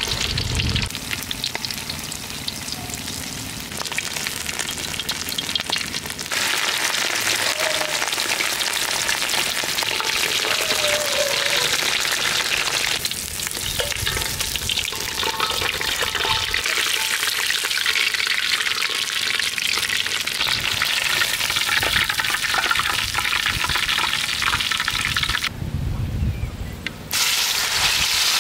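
Hot oil sizzling and crackling in a metal wok as rice-coated rats deep-fry. The sizzle thins out about halfway through and drops away briefly near the end.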